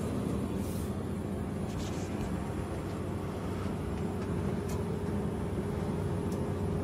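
Open soda vending machine humming steadily, a faint held tone over a low machine drone, with a few faint light ticks.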